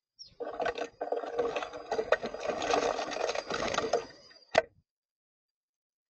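Rapid clattering and scratching at a bird feeder, like birds scrabbling and pecking at the seed, for about four seconds, ending with one sharp click.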